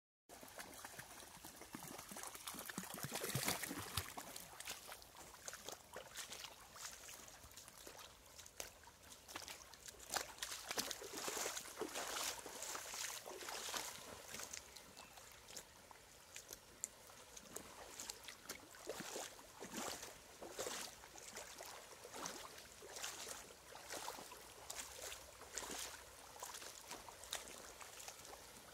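Running water of a shallow stream trickling over a gravel bed, with irregular splashing of wading through the water, heaviest about three seconds in and again around ten to thirteen seconds.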